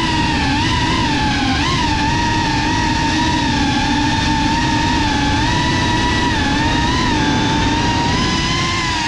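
GEPRC Cinelog35 FPV cinewhoop drone in flight, its motors and ducted propellers whining steadily. The pitch wavers up and down with the throttle, with a quick rise about two seconds in. It is heard close up from the camera mounted on the drone.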